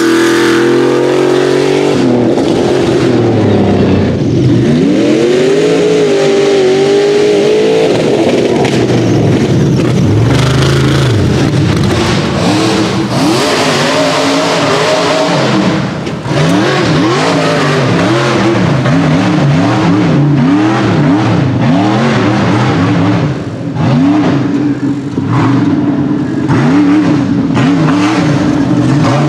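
Rock bouncer race buggy engines revving hard, the pitch swinging up and down again and again, with faster repeated rev surges in the second half.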